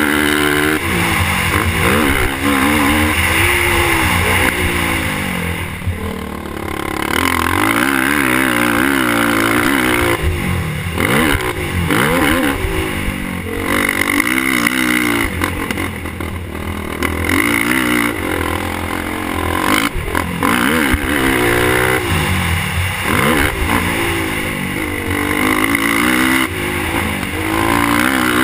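Suzuki LTR450 sport quad's single-cylinder four-stroke engine being ridden hard, its pitch rising and falling over and over as the throttle is worked, with the revs dropping briefly about six, fifteen and twenty-two seconds in.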